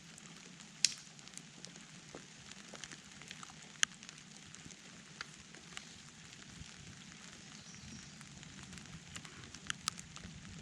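Rain falling steadily, a soft hiss with many irregular close drops ticking and crackling, a few of them sharper and louder.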